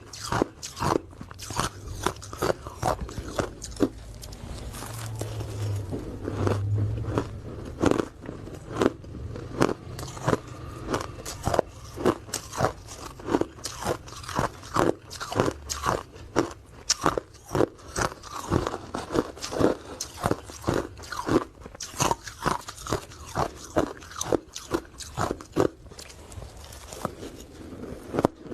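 Close-up crunching of ice cubes being bitten and chewed, a rapid irregular series of sharp crunches, about one or two a second, with a stretch of denser grinding chewing a few seconds in.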